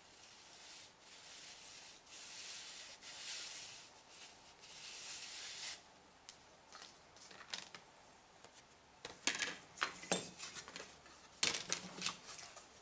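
A pen scratching on paper in uneven strokes as a circle is traced around a plastic template. After that come rustling and a few sharp clicks as the template, paper and scissors are handled.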